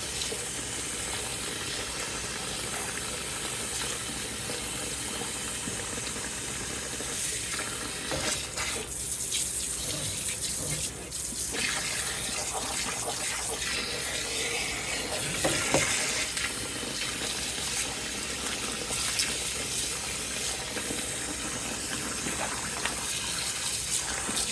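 Cold tap water running steadily into a basin for rinsing. About eight seconds in, the sound of the flow changes for a few seconds, and there are a few brief splashes later on.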